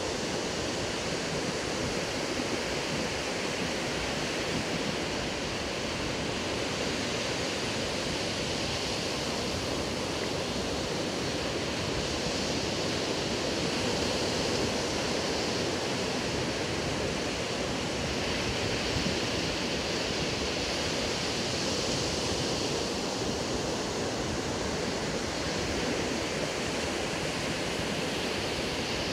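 Ocean surf breaking and washing up a sandy beach: a steady rush of waves that swells and eases slowly.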